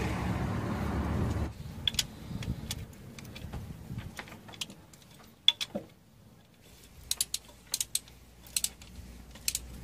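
Sharp metallic clicks and taps, irregular and some in quick pairs, from a socket wrench being fitted to and worked on the gearbox plug. A louder low rumble runs for the first second and a half, then cuts off.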